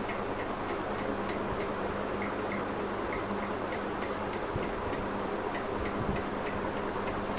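Refrigerator running with a steady low hum, and faint light ticking a few times a second.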